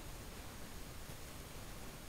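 Steady faint hiss with a low rumble, with no distinct sounds: indoor room tone over the recorder's own noise.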